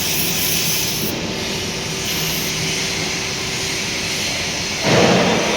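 Steady machinery noise from an industrial workplace, with a short, loud burst of noise near the end.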